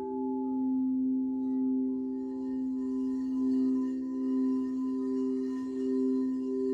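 Several crystal singing bowls ringing together in long sustained tones, their loudness swelling and fading in a slow, even wobble. A higher tone joins about two seconds in.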